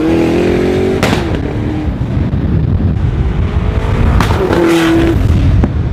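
SSC Tuatara's twin-turbocharged V8 revving as the car accelerates, its note climbing and breaking off sharply about a second in, then climbing again about four seconds in.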